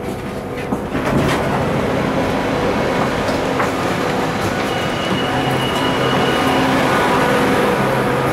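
Bangkok MRT subway train stopping at a station platform. Its doors slide open about a second in, under the steady noise of the train, with a thin steady high tone lasting about two seconds midway.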